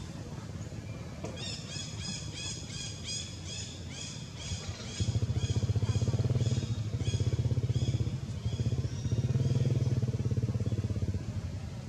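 A motor engine, likely a motorcycle, running with a loud, low pulsing drone from about five seconds in, in two swells. Over the start, a rapid series of high chirping notes, about three a second, fades away.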